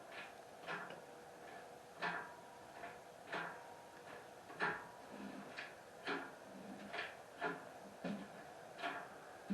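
Hydraulic engine hoist being pumped to lift a heavy milling machine: a short click or clunk with each stroke of the jack handle, about once a second.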